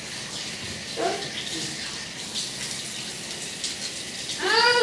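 Water running steadily from a kitchen tap into a sink, splashing over a small child's hands as he is washed. A brief high child's voice sounds near the end.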